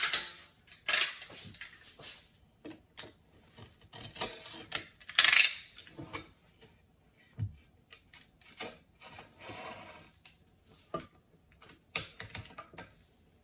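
Art supplies being handled on a desk: scattered small clicks, taps and rubbing, with two short, louder scraping rustles about a second in and again about five seconds in.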